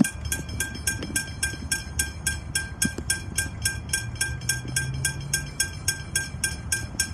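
Railway level crossing bell ringing as the crossing's warning, a rapid steady stroke of about three strikes a second with a bright metallic ring.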